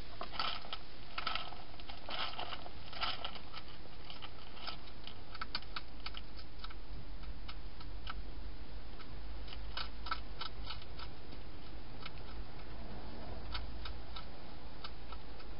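Wild hedgehog crunching dry food inside a plastic feeding box: irregular sharp clicks, thickest in the first three seconds and scattered after, over a steady hiss and low hum.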